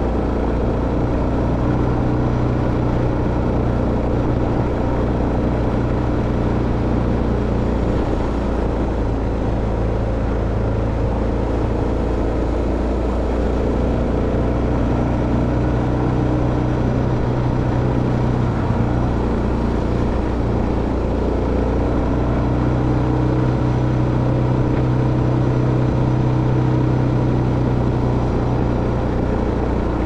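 A vehicle's engine running at fairly steady revs while driving, with road noise underneath.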